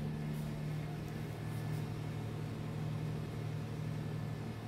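Oven running with a steady low hum.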